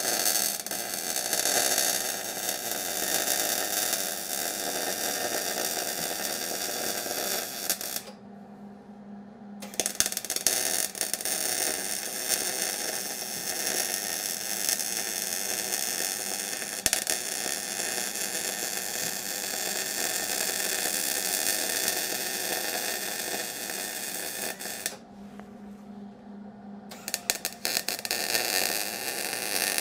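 Arc welding: a steady, loud crackling hiss as a weld bead is run around a wheel bearing race inside a steel truck hub. The arc stops twice, about eight seconds in for a second and a half and about twenty-five seconds in for two seconds, before it is struck again.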